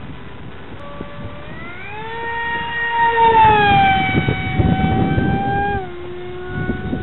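Parkzone Stryker F27C's NTM 3000kv brushless motor spinning a 6x4 APC propeller at wide-open throttle on a fast pass. The high-pitched whine rises in pitch and swells from about two seconds in, is loudest around three to four seconds, then drops sharply in pitch and level about six seconds in.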